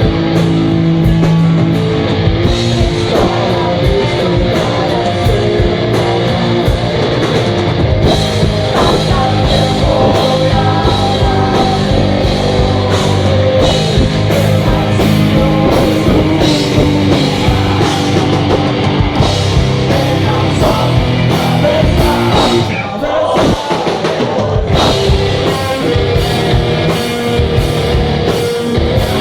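Rock band playing loud, with electric guitar and drum kit, briefly dropping back about 23 seconds in.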